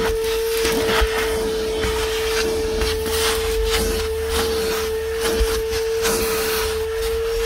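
DeWalt 9-gallon, 5 hp wet/dry shop vacuum running with a steady whine, its nozzle picking up dirt with scattered clicks and rattles of debris drawn into the hose.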